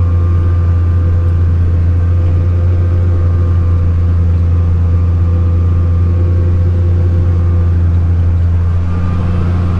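Tractor diesel engine running steadily under load while pulling a row-crop cultivator: a loud, constant low drone that eases slightly near the end.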